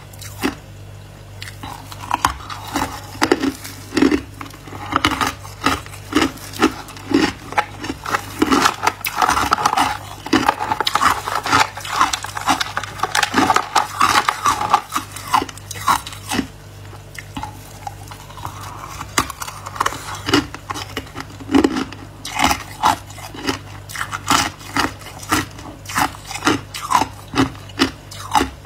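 Biting and chewing hard clear ice chunks: a rapid, irregular series of sharp crunches and cracks that thins out briefly about two-thirds through, over a faint steady low hum.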